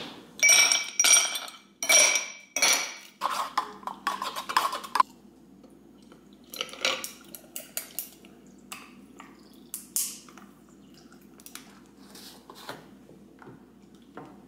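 Ice cubes dropped one after another into a tall glass tumbler: about half a dozen loud, ringing clinks over the first five seconds. Then softer, scattered clicks and clinks as coffee is poured from a steel pitcher over the ice.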